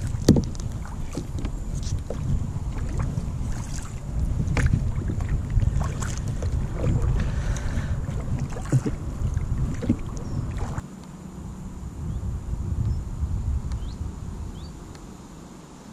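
Kayak paddling: the paddle dipping and splashing in the water with occasional knocks, over a low wind rumble on the microphone. The strokes stop about eleven seconds in and the sound drops away.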